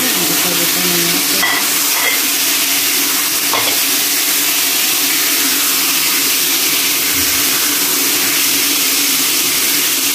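Raw chicken pieces sizzling steadily in a hot frying pan with sautéed onion and garlic, stirred with a spatula, with a couple of light spatula knocks on the pan.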